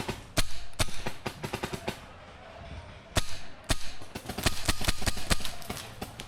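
Paintball markers firing: quick strings of shots with a few loud single cracks, and a dense run of rapid fire from about the middle on.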